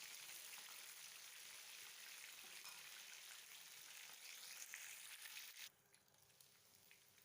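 Chicken pieces frying in oil in a pan, a faint, steady sizzle with small crackles that cuts off abruptly near the end.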